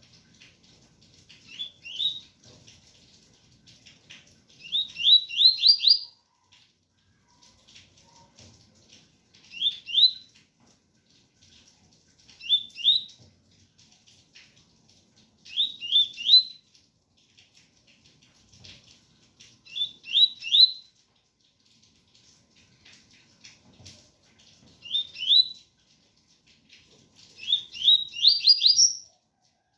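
Double-collared seedeater (coleiro) singing its 'tui-tui' song: short phrases of two to five quick rising whistled notes, repeated every few seconds, with the longest phrases near the start and the end. Rain patters faintly underneath.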